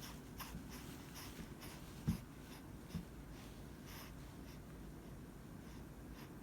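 Faint short breaths and snuffles from a baby, with light rustling, and two soft thumps about two and three seconds in, the first the louder.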